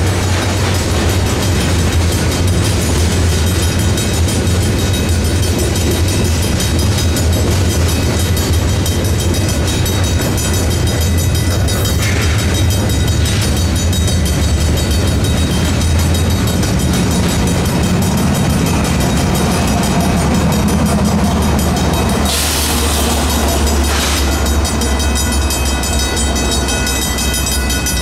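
Freight cars rolling slowly through a grade crossing, a steady low rumble with wheel clatter, while the crossing's Griswold mechanical bell rings continuously. Brief hissing bursts come about halfway through and again near the end.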